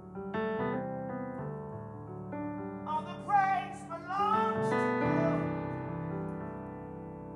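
Piano or electric keyboard playing slow, sustained worship chords, with a short wordless sung phrase with vibrato about three seconds in.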